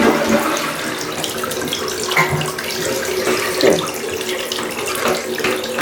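Water running steadily from a bathroom tap, with a faint steady hum underneath.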